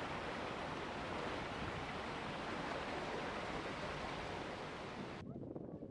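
Steady rush of churning, foaming water below a lock's exit pier, which cuts off suddenly about five seconds in.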